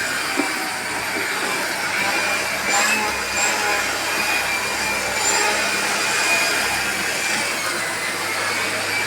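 Artel 2000 W vacuum cleaner running: a steady rushing hiss with a high motor whine that wavers slightly in pitch.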